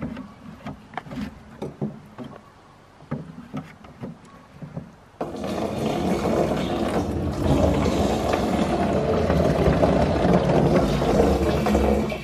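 Maple sap poured from a plastic bucket into a plastic drum. A few light knocks of the bucket come first; then, about five seconds in, a sudden steady gush of liquid splashes loudly into the drum.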